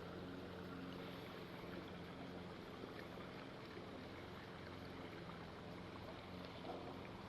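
Faint, steady background hiss with a low, even hum underneath; nothing sudden.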